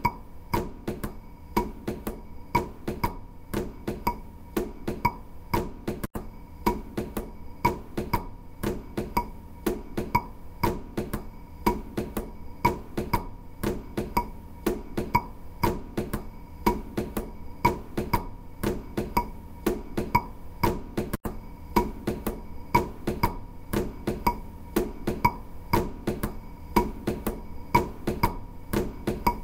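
Instrumental background music with a steady ticking beat, about two to three strokes a second, each stroke carrying a short ringing tone.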